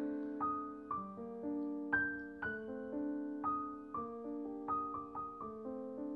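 Soft background piano music: a slow melody of single notes and chords, struck about twice a second and left to ring.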